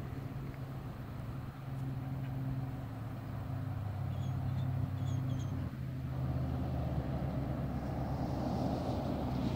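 A motor vehicle's engine running steadily, a low hum whose pitch shifts slightly about halfway through, with a broad rushing noise growing louder in the second half.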